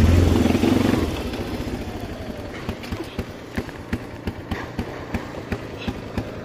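ATV engine running, dying away within about the first second, followed by a quieter stretch with a run of light clicks, a few a second.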